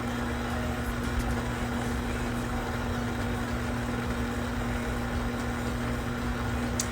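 A steady low hum with one constant tone over an even background noise, unchanging throughout.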